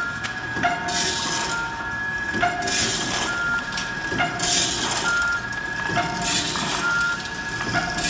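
Vertical form-fill-seal soybean packing machine running through its cycle, with a short burst of hiss about every two seconds, clicks, and short high tones over a steady whine.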